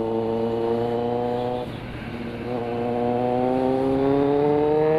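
Kawasaki Z900's 948 cc inline-four running under way. A little under two seconds in the engine note drops off briefly, as at an upshift, then comes back lower and climbs steadily as the bike accelerates.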